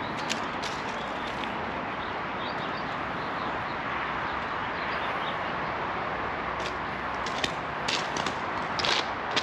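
A steady background rush with scattered crunching footsteps on gravel railway ballast, a few near the start and a cluster of louder ones in the last few seconds.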